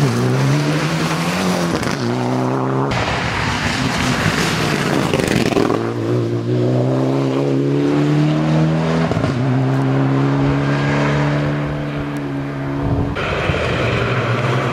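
Mitsubishi Lancer Evo X rally car's turbocharged four-cylinder engine at full throttle on a special stage. The engine note climbs, breaks off at each gear change, and climbs again. The sound changes abruptly a couple of times.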